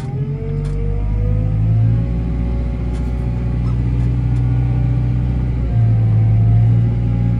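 JCB telehandler's diesel engine running hard under load, heard from inside the cab, with a whine that rises in pitch over the first couple of seconds as it revs up. It gets louder again about six seconds in.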